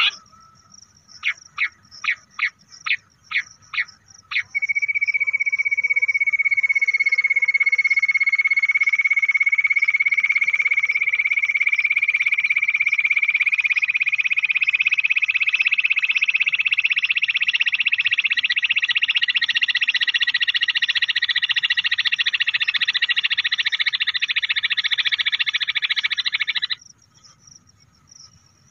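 Bush quail call, as played back for luring quail: a run of eight short, sharp notes, then a long, rapid, buzzing trill that slowly rises in pitch and cuts off abruptly near the end.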